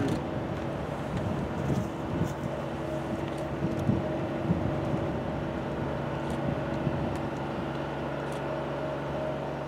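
Steady engine drone, a constant low hum with a few fixed tones over light noise, holding one level throughout.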